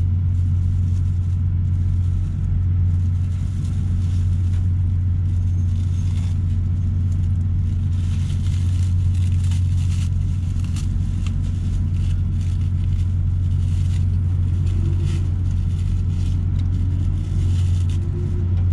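Steady low drone of an idling diesel truck engine heard inside the cab, with scattered light clicks and rustling as pork is handled for the stew.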